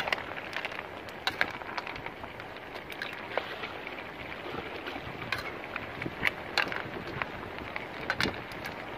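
A metal spoon stirring a pan of snails and vegetables simmering in coconut milk, with scattered clinks and scrapes against the metal pan over a steady hiss.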